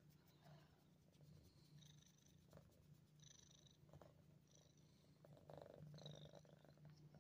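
Young domestic cat purring steadily and faintly right at the microphone, with a few soft rustles as it moves against it.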